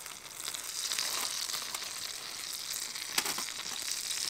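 Fat sizzling and crackling in a frying pan on a Trangia Mini alcohol stove, a steady hiss that grows a little louder about half a second in, with a sharper click about three seconds in.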